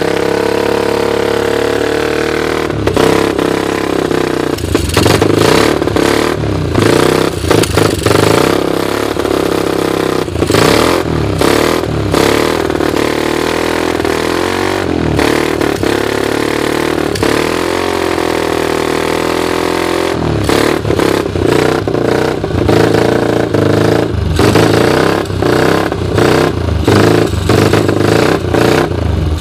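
Honda 250X ATV engine running just after a cold start, on a makeshift carburettor and a portable GY6 CDI. The throttle is blipped over and over, so the engine note keeps rising and dipping, with short stumbles between the revs.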